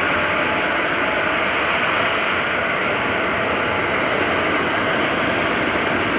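Train wagons rolling along the track, wheels on rails giving a steady, even running noise that holds level throughout.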